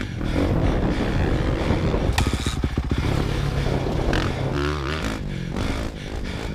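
Dirt bike engine revving hard, its pitch rising and falling as the throttle is worked.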